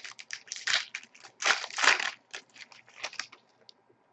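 Crinkling and rustling of a foil trading-card pack being torn open and its hockey cards slid out and handled. The crackles come in irregular bursts, loudest about a second and a half in, then thin out to a few small ticks near the end.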